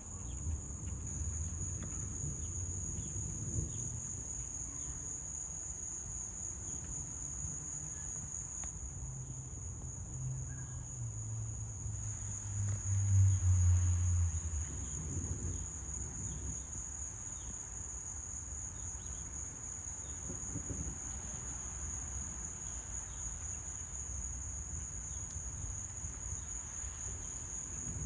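Steady high-pitched trilling of insects, with the low rumble of distant thunder underneath that swells to its loudest about halfway through and then fades.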